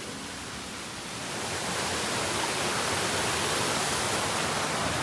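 Rushing water of a moorland stream and waterfall, a steady hiss that grows louder between one and two seconds in and then holds.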